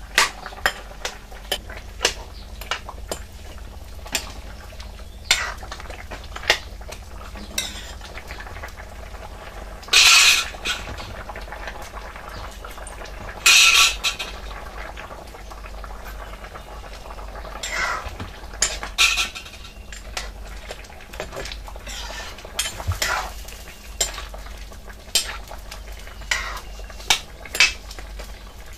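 Metal ladle stirring a curry in a steel kadai: frequent sharp clinks and knocks of ladle against pan, with a few longer, louder scrapes along the pan's side.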